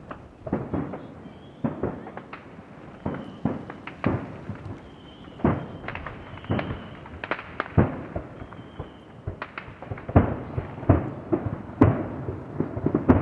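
Aerial fireworks shells bursting in a rapid, irregular run of bangs heard at a distance, each trailing off in an echo. The bangs come louder and closer together near the end.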